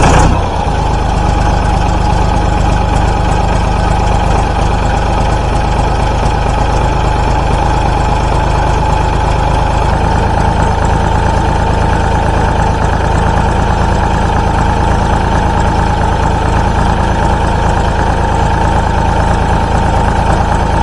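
Massey Ferguson 231's three-cylinder diesel engine idling just after a cold start, louder for a moment at the start and then settling to a steady idle.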